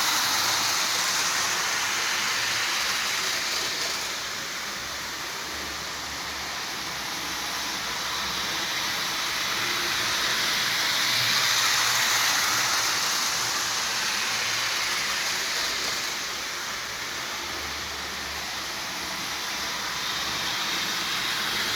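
Lionel Coca-Cola switcher toy train running on its track: the electric motor's whir and the wheels rattling on the rails. It grows louder and softer in slow swells as the train moves around the layout.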